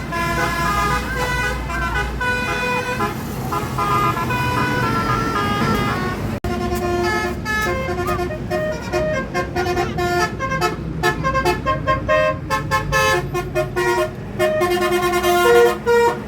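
Telolet bus horn: a bus's multi-tone musical air horns playing a quick melody of stepping notes. About six seconds in the sound breaks off and another horn tune follows in short, rapid notes.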